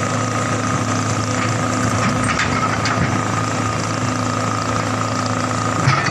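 Hitachi EX200 hydraulic excavator's diesel engine running steadily, with a few faint knocks and one sharper, louder knock near the end.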